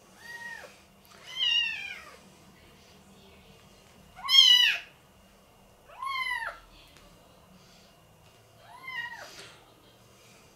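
A very young, bottle-fed calico kitten mewing five times, each cry rising then falling in pitch, the loudest about four seconds in.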